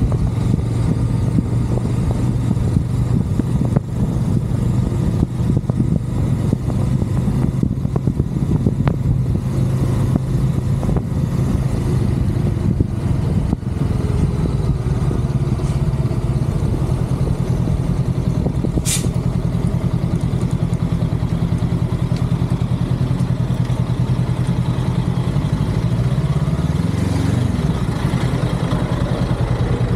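Honda Rebel 500's parallel-twin engine running steadily while the motorcycle cruises. Near the end the engine note rises and then drops as the bike slows to a stop at a light. There is one brief high-pitched chirp about two-thirds of the way through.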